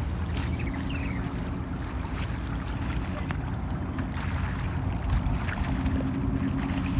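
Steady low wind rumble on the microphone at the open water's edge, with a faint wash of small waves.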